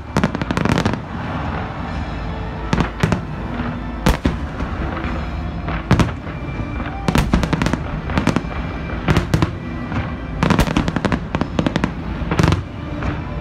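Aerial fireworks bursting in clusters of sharp bangs and cracks every second or two, some clusters a rapid run of several reports, over the show's accompanying music.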